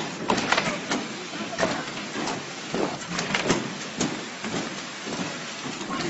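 Construction-site noise: a steady hiss with irregular knocks and clanks scattered through it.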